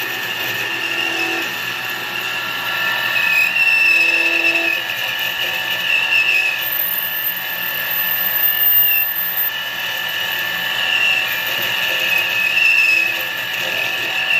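Metal lathe running while a long boring bar cuts the inside of an aluminum ring, with a high, wavering whine that swells and fades every second or two. The bar is chattering slightly in the cut, which is typical of a boring bar that is long rather than stiff.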